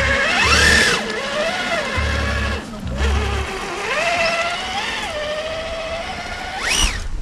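Brushless electric motor of a Traxxas TRX-4 RC crawler whining, its pitch rising and falling with the throttle as the truck climbs, with a quick sharp rise near the end. Background music with a deep bass beat plays underneath.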